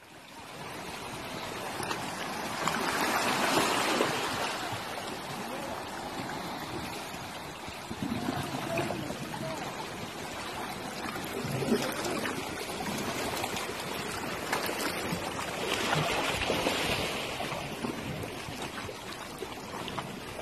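Small sea waves lapping and washing against shoreline rocks, a steady wash that swells louder about three seconds in and again around sixteen seconds.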